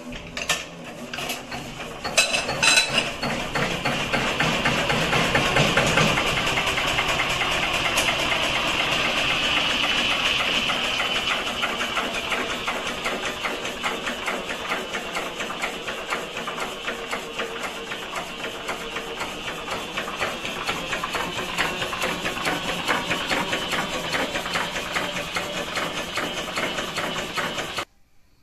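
Small vintage Dutch stationary diesel engine starting: it catches about two seconds in, then runs steadily with a rapid, even knocking beat. The sound cuts off suddenly near the end.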